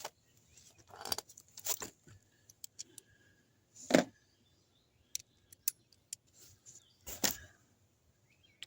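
Sockets and a wrench being handled: scattered metal clinks and rattles, with louder knocks about four and seven seconds in.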